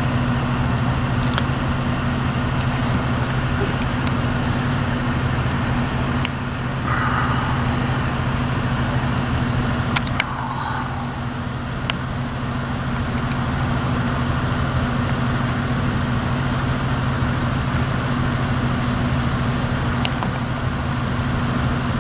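A motor vehicle engine idling with a steady low hum, with a few faint clicks over it.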